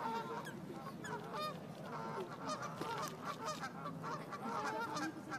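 A flock of geese honking, many short calls overlapping without a break.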